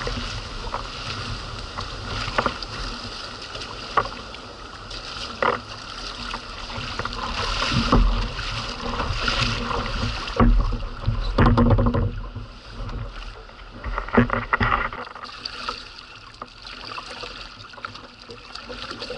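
Whitewater rushing and splashing against a fishing kayak's hull as it is paddled out through the surf, with the irregular splash of double-bladed paddle strokes. The water sound grows quieter in the last few seconds as the kayak reaches calmer water.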